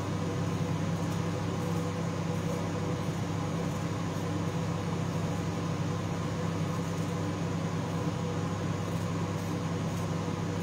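Microwave oven running with a steady low hum while it precooks asparagus.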